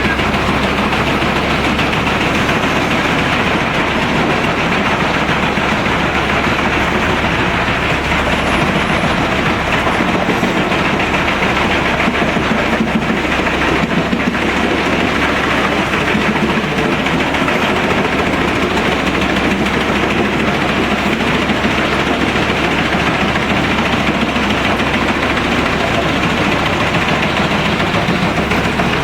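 Heavy Pezzolato PTH 1300/1500 drum wood chipper, powered by a Caterpillar engine, running steadily while chipping wood, a loud continuous mechanical din.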